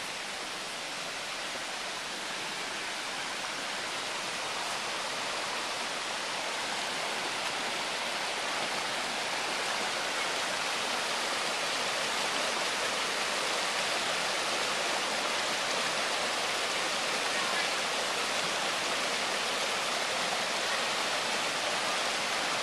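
Mountain creek rushing over rocks and boulders, a steady rush of water that grows gradually louder.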